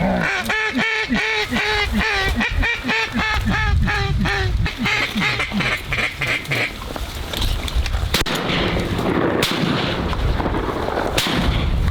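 A long, even run of duck quacks, about three a second, that stops after six or seven seconds; then a noisy stretch with three sharp cracks.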